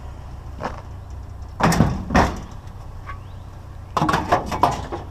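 Knocks and clatter of scrap and junk being handled and shifted, a single knock and then two short bursts of clattering, over a steady low rumble.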